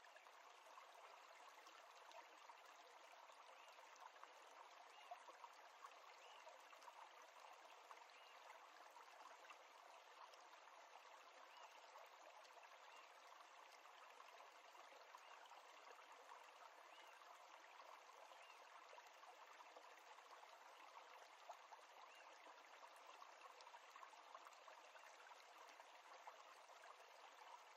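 Near silence: a faint, steady background hiss with light crackling throughout.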